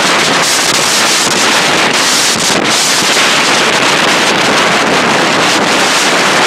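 Gale-force wind blasting across the microphone, mixed with the rush of heavy surf: a loud, steady hiss with no let-up.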